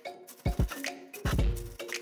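Background music with held notes and a light, plucky percussive beat.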